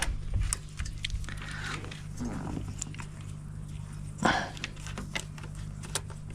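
Scattered light clicks and rustles of hands handling wiring and small plastic parts on a motorcycle, over a steady low hum. One short, louder sound comes about four seconds in.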